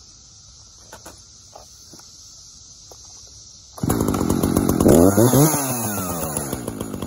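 Echo CS-590 two-stroke chainsaw being pull-started: about four seconds in the engine catches and runs, revving up and back down once, then keeps running.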